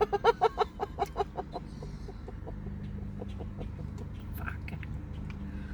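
A woman's short burst of laughter, a quick run of pitched ha-ha pulses fading out within the first second and a half, followed by a steady low hum.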